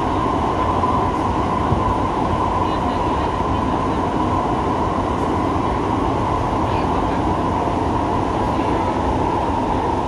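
Siemens C651 metro train running, heard inside the car: a steady, unbroken rumble of wheels and motors with a constant mid-pitched hum over it.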